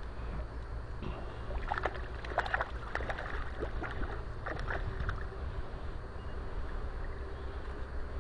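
Hooked brown trout splashing and thrashing at the water's surface, a run of splashes between about one and a half and five seconds in, over a steady low rumble.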